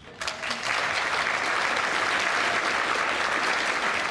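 Studio audience applauding, building up within the first half second and then steady.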